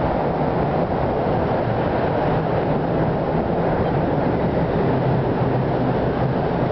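Boat engines on the river running steadily: a continuous rumble with a low hum underneath.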